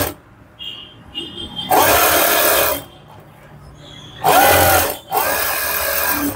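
Electric sewing machine running in short bursts while stitching around a blouse lining: three runs of about a second each, with brief pauses between.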